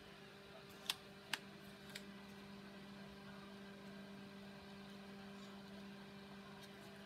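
Craft knife blade cutting through chipboard, faint, with two sharp clicks about a second in, over a steady low hum.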